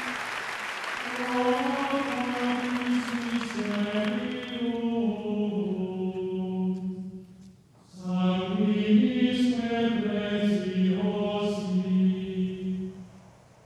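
Applause fading out over the first few seconds as slow, choir-like music of long held chords comes in, changing chord every second or so. The music drops away briefly a little past the middle and fades out near the end.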